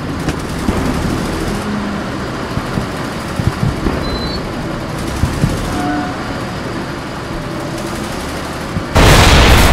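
Steady tank-like rumble with scattered clanks, then about nine seconds in a sudden loud explosion that carries on past the end.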